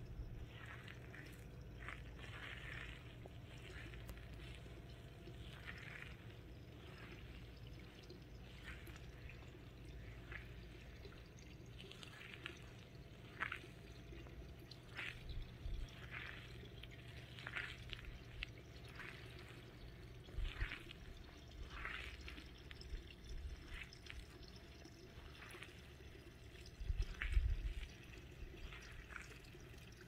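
Early-spring frog chorus at a pond: faint, short croaks at irregular intervals, sometimes several close together, over a low steady hum.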